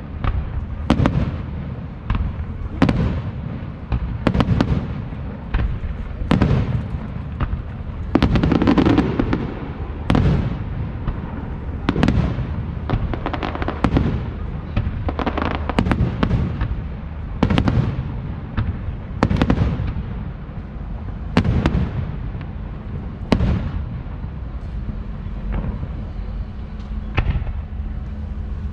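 Aerial fireworks shells bursting in a steady, even sequence of loud bangs, about one every two seconds, each with a rumbling echo. The bangs get weaker near the end.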